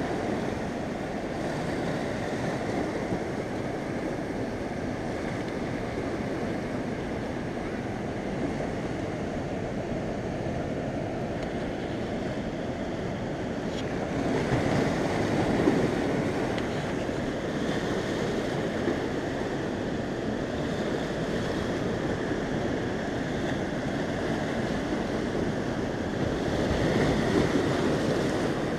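Small sea waves washing in over a rocky shore of dark lava boulders, splashing and foaming between the rocks over a steady surf rush. The wash swells louder twice, about halfway through and near the end.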